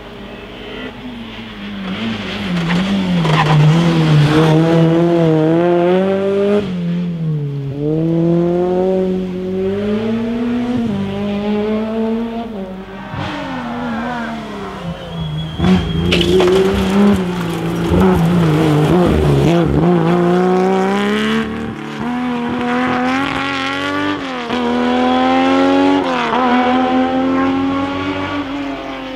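Rally car engine driven hard through corners: the note climbs and drops again and again as the driver accelerates, shifts and lifts off. A brief high tyre squeal comes about halfway through.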